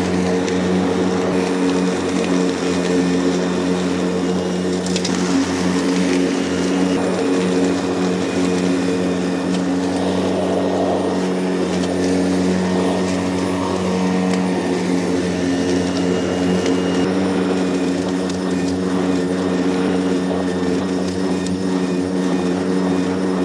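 AS Motor commercial battery lawnmower mulching grass: the motor and spinning blade give a steady hum over a hiss.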